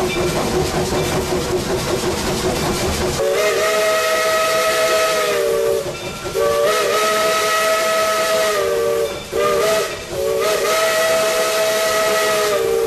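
Steam locomotive whistle, heard from inside the cab, sounding the grade-crossing signal: two long blasts, a short one, then another long one, each blast a chord of several notes. Before it, for about three seconds, only the hiss and rumble of the working locomotive.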